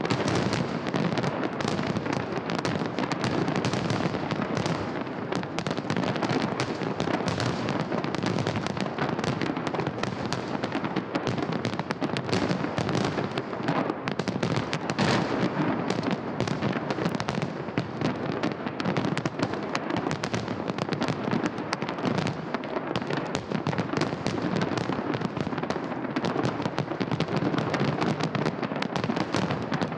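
Festive fireworks salute: a dense, continuous crackle of many overlapping bursts and pops, steady throughout with no pause.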